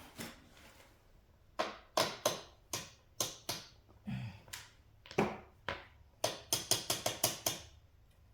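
Hand tools clicking and knocking on the minibike's rear axle and chain adjuster: sharp separate clicks, irregular at first, with a dull thud about four seconds in, then a quicker run of about eight clicks near the end.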